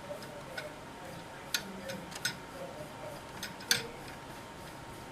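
Scattered light clicks and small scrapes from the video heads of a Sony UVW-1700G Betacam SP deck being cleaned by hand. The loudest click comes a little before four seconds in.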